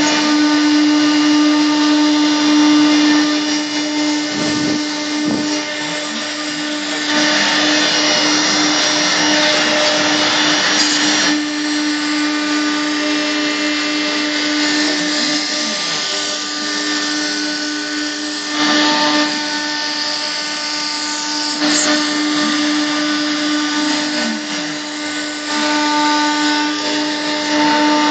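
CNC router spindle motor running with a steady high whine, joined by stretches of louder, harsher hissing noise, the longest from about seven to eleven seconds in.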